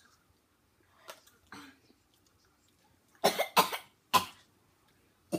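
A boy coughing and gagging, three harsh coughs about three seconds in, the first two close together, as he reacts to a foul-tasting Bean Boozled jelly bean.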